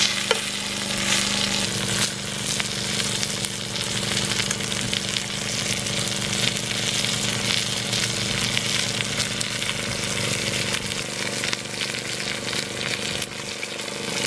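Steak searing in a cast-iron skillet over an open wood fire: a steady sizzle with fine crackling.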